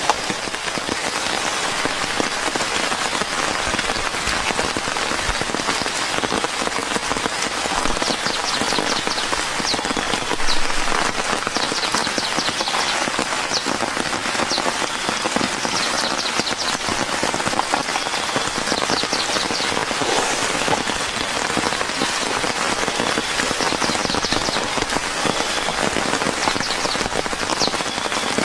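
Steady rain falling, a dense even hiss of many small drops. From about a third of the way in, a high, fast chirping call comes in short rapid trains every few seconds.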